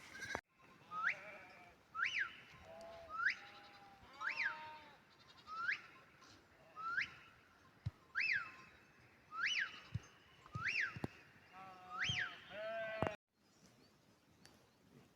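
Sheep bleating, several calls one after another, with a higher, sharp chirping call repeating about once a second over them. The sound cuts off abruptly about 13 seconds in, leaving only a faint background.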